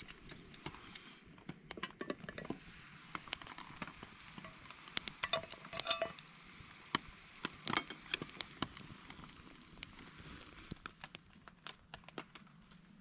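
Raindrops pattering irregularly on a tarp, with a cluster of louder taps about five to six seconds in.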